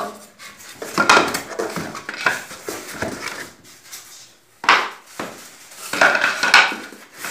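Parts and packing being handled in a cardboard box: irregular knocks, scrapes and light clinks, with one louder knock about four and a half seconds in.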